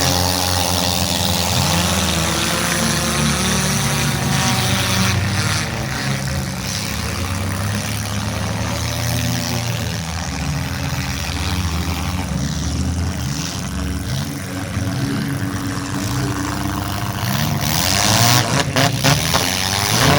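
Several demolition derby car engines running and revving, their pitches rising and falling. Near the end comes a run of sharp bangs from cars colliding.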